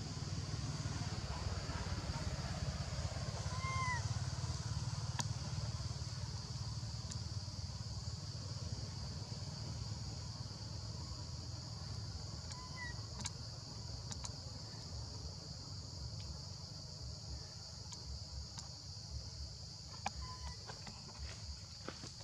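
Steady, high insect chorus over a low rumble, with three brief rising-and-falling chirps, one each about 4, 13 and 20 seconds in.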